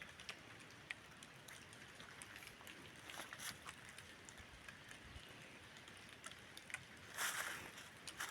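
Quiet jungle ambience: a faint steady hiss with scattered small ticks, and a brief louder rustle about seven seconds in.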